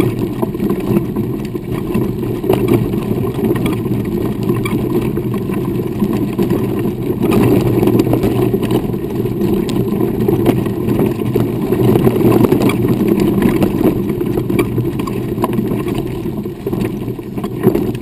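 Wheels rolling over a dirt and gravel trail: a steady low rumble with small rattles and ticks from stones and the chassis.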